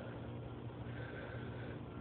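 Steady low hum with an even faint hiss, and no distinct sound event: background noise.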